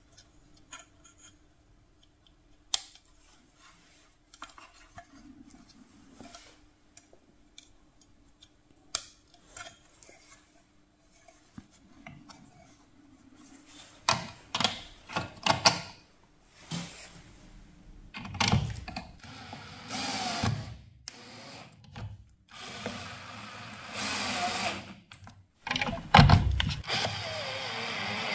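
Sharp clicks and knocks of handling as spade connectors are pushed onto a speaker's terminals and the speaker is set into the box. In the second half a cordless screwdriver runs in three or four bursts of a couple of seconds each, driving in the speaker's mounting screws.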